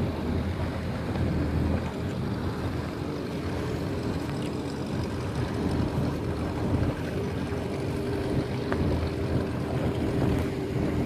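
Wind buffeting the microphone over open water, with water lapping and a steady low motorboat engine hum that becomes clearer about halfway through.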